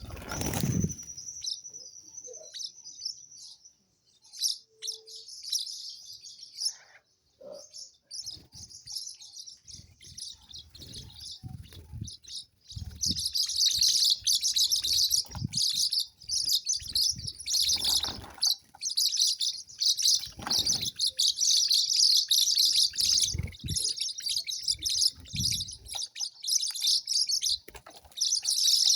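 Small birds chirping in rapid high twitters, sparse at first and then a dense, continuous chorus from about halfway through, with occasional low thumps.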